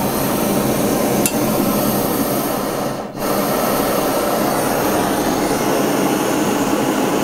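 Small handheld gas torch burning with a steady hiss while it heats a tiny silver contact to melt it into a bead. The flame dips briefly about three seconds in.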